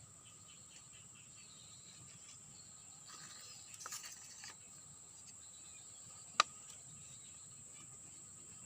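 Insects shrilling steadily at a high pitch, with a brief rustle a little before the middle and a single sharp click about six seconds in.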